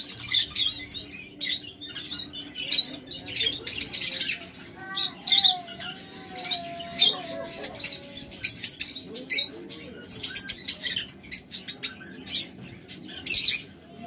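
A flock of small parrots, budgerigars and lovebirds, chattering in dense, rapid high chirps and squeaks.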